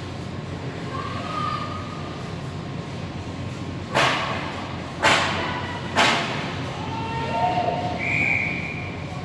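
Three loud, sharp bangs about a second apart, each echoing through the ice arena, over a steady rink background.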